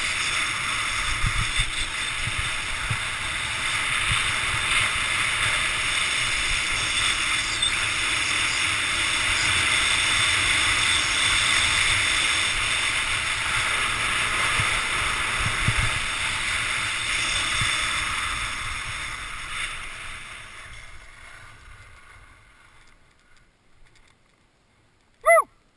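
Skis running over packed snow with wind rushing past the microphone, a steady hiss with low gusty rumble, fading away about twenty seconds in as the skier slows to a stop. Near the end a person gives a brief shout.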